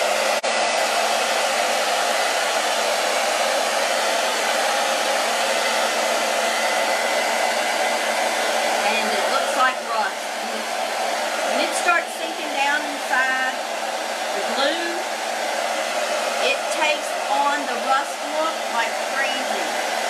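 Handheld hair dryer running steadily on a loud, even blow. Through its noise, from about halfway on, come short squeaks and clicks.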